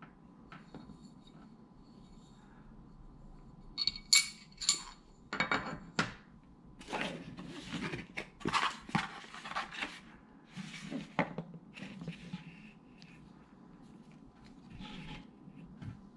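Aluminium paddle-shifter extensions clinking with a short metallic ring as they are set down on a table, a few strikes close together about four seconds in. Then a run of irregular scraping and rustling as a small cardboard box is handled and opened.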